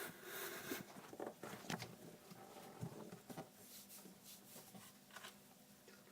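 Faint rustling with scattered soft taps and clicks, thinning out towards the end, over a faint steady hum.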